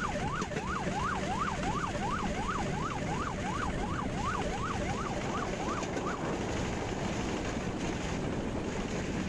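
An electronic siren warbling quickly up and down, about three times a second, stopping about six seconds in, over a steady hum and background rumble.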